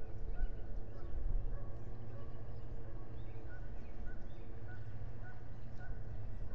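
Outdoor ambience with a steady low rumble and small birds chirping in the distance: a short, thin note repeating about twice a second, with scattered higher chirps.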